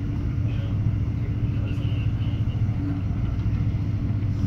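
Regional express train running at speed, heard from inside the passenger car: a steady, low rumble of wheels on track with a constant hum above it.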